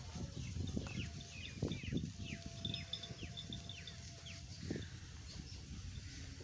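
Nili Ravi buffalo walking on dry dirt as it is led, with a few soft hoof thuds over a low rumble. A run of short, high, falling chirps repeats through the first half, and a faint steady tone sounds briefly in the middle.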